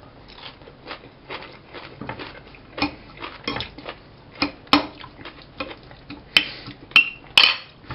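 Metal fork scraping and clinking against a plate while stirring and scooping shredded cabbage and carrot salad: irregular clicks and scrapes, with a few sharper clinks in the second half.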